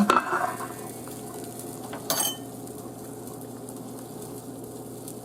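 A metal utensil clinks against the pot while the pot roast is checked for doneness, with one sharp clink about two seconds in; between the clinks the braising liquid simmers steadily.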